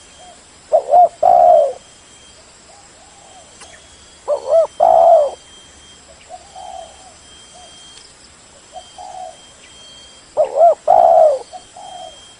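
Spotted dove cooing: three loud calls, each a quick pair of short notes followed by a longer coo, spaced about four to six seconds apart, with softer coos between them.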